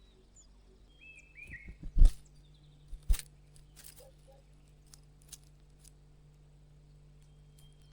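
Two loud knocks or thumps about a second apart, with a few short bird chirps just before them and scattered light clicks after.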